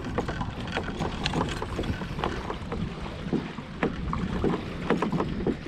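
Low rumble and wind noise on the microphone, with scattered light clicks and knocks, as a vehicle backs a boat trailer down a launch ramp.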